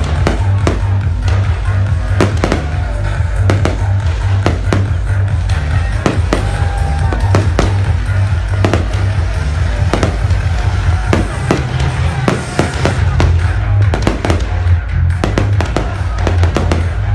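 Aerial fireworks bursting in a rapid, irregular series of bangs, several a second at times, over music with a heavy, steady bass.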